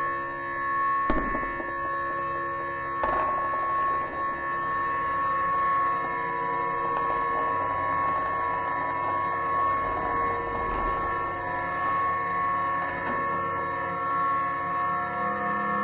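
A drone of several steady held tones layered together, with two struck hits that ring on, about one second and three seconds in.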